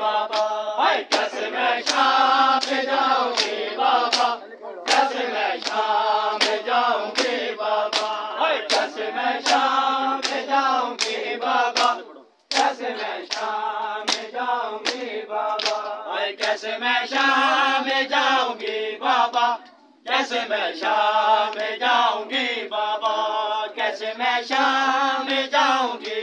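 A group of men chanting a Muharram noha lament together while slapping their chests with open hands in time (matam), sharp slaps about twice a second. The chant and beating stop briefly twice.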